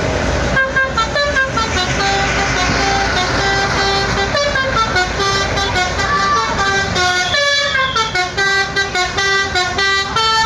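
Basuri telolet bus horn playing a tune: a run of steady notes of different pitches, stepping up and down like a melody, over the low rumble of the bus and road.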